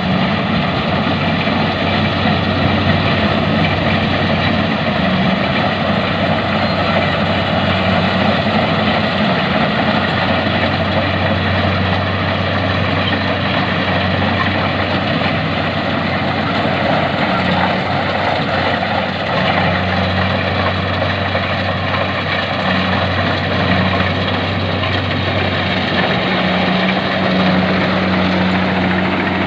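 Engine of a rice harvesting machine running steadily at a constant, even hum.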